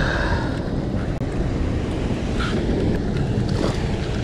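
Steady wind buffeting on the microphone over the rush of turbulent water churning below a dam's open flood gates.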